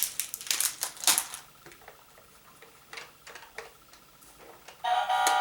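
Plastic candy wrappers crinkling and small clicks and taps as candy packs are handled and set down. Near the end a loud, steady electronic tone made of several held pitches starts abruptly.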